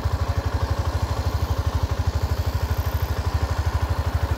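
Small motorcycle engine running at low revs, an even putter of about ten beats a second with no change in pace.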